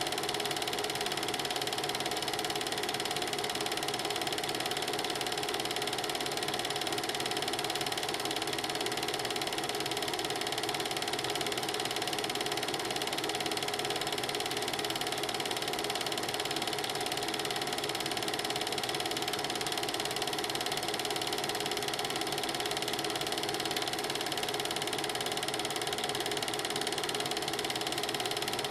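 Film projector running: a steady, unbroken mechanical rattle and whir from the projector's film-advance mechanism, with no other sound over it.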